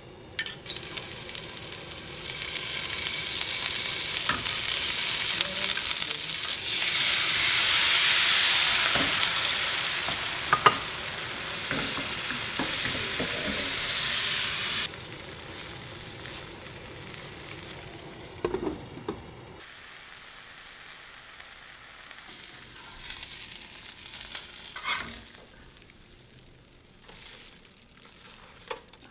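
Bánh xèo rice batter sizzling loudly in a hot frying pan, the hiss swelling for the first half and then cutting off abruptly. This is the sound the dish is named for. After that it is much fainter, with a few light knocks.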